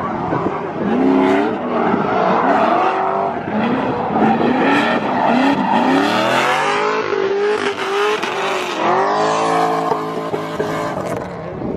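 Drift car's engine revving hard, its pitch rising and falling over and over, with tyres squealing as the car slides.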